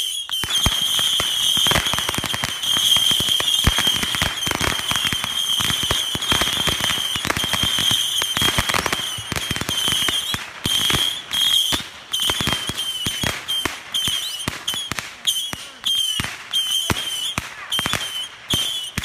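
A barrage of fireworks: rapid, overlapping crackling bangs mixed with a steady high whistle. Around halfway through, the whistle starts coming and going in short stretches, and the bangs thin out with small gaps toward the end.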